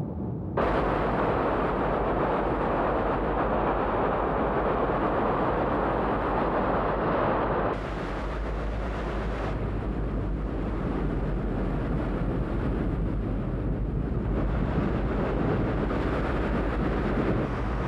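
Light aircraft's engine and airflow heard inside the cabin: a loud, steady rush over a low drone. The sound changes abruptly about eight seconds in and is a little quieter afterwards.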